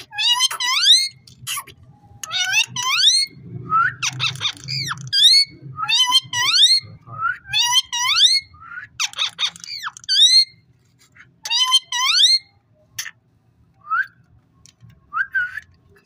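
Indian ringneck parrot whistling: a run of quick rising whistled notes in short phrases about a second apart, with a burst of rapid chatter about four seconds in, thinning to a few single notes near the end.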